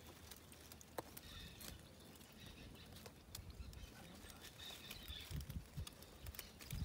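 Faint outdoor quiet with a few distant bird chirps, light clicks, and low thumps of wind or handling on the microphone near the end.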